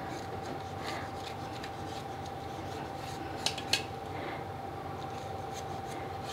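Kitchen knife cutting through an omelette and scraping on a stainless steel plate, with two sharp clicks of the blade on the metal about three and a half seconds in.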